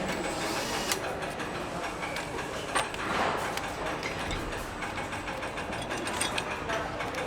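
Engine assembly-line noise: a steady mechanical din with scattered sharp clicks and knocks from tools and parts, one about a second in, one near three seconds and a few around six seconds.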